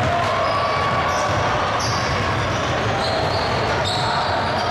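A basketball bouncing on a gym floor, with indistinct voices in the background.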